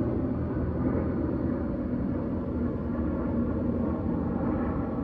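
BMW M4 Competition's twin-turbo inline-six idling steadily, a low even hum.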